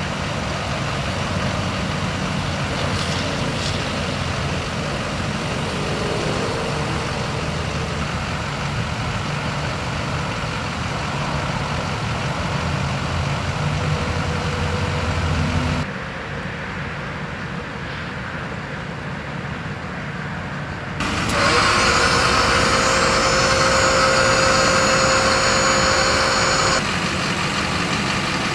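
Duramax 6.6-litre V8 turbo-diesel idling steadily. From about two-thirds of the way in, a louder steady whine joins it for several seconds: the electric-hydraulic dump hoist pump running to raise the bed.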